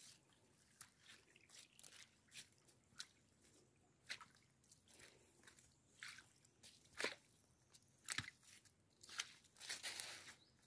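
Footsteps on wet leaf litter on a forest floor: faint, irregular crunches and rustles, about two a second, one louder step about seven seconds in.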